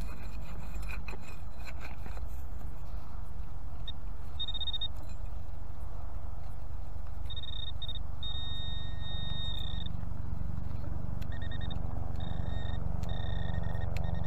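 Metal detector sounding a high, steady electronic tone over a target being dug: a short beep about four seconds in, then longer on-and-off stretches of tone. It follows a few scraping sounds at the start, over a steady low rumble that swells near the end.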